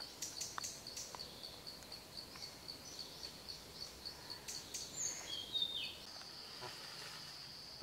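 Forest ambience: an insect's high-pitched call pulsing about four times a second, which becomes a continuous buzz about six seconds in. Scattered short bird chirps and a falling whistled note are heard over it.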